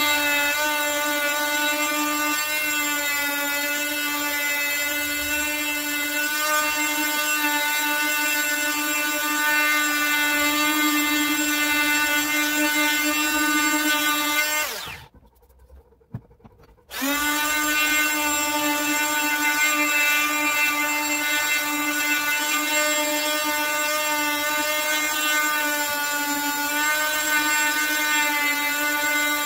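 Wesco oscillating multi-tool running steadily with a pitched whine while its pad works a wooden carving. It winds down and stops about 15 seconds in, then starts up again about two seconds later.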